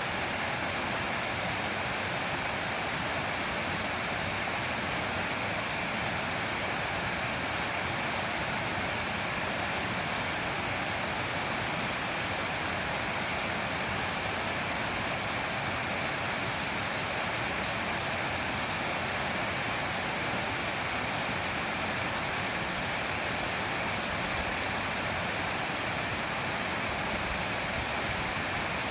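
Mountain stream water rushing over rocks in a small cascade, a steady even rush.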